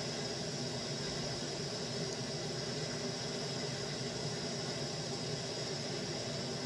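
Rain falling steadily: an even, unbroken noise that does not change.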